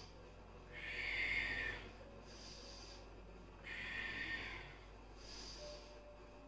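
A person breathing powerfully and audibly in time with a Kundalini yoga spinal flex. There are two full breath cycles, each a louder rush of breath followed by a softer, hissier one, about three seconds per cycle.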